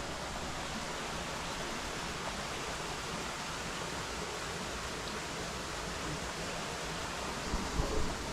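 Steady rushing of flowing creek water, an even hiss spread across the range, with a few low thumps near the end.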